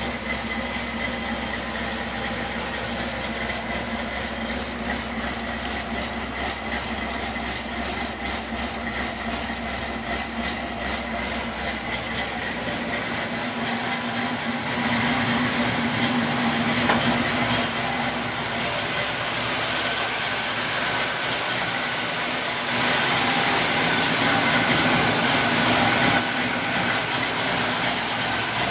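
Dodge Caravan engine running steadily at idle, getting louder for a few seconds about halfway through and again near the end.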